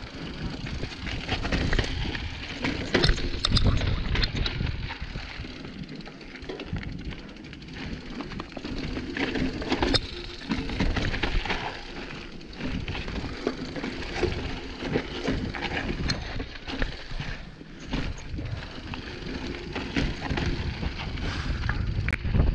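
Mountain bike ridden down a rocky, loose trail: tyres crunching over stones and gravel, with the bike clattering and knocking over each bump in a constant run of sharp clicks.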